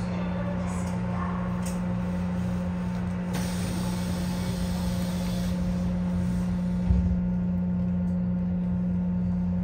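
Seoul Subway Line 6 train with Mitsubishi IGBT-VVVF drive, heard from inside the car as it runs between stations: a steady low hum and rumble. A hiss starts about three and a half seconds in and lasts about two seconds, and there is a single knock about seven seconds in.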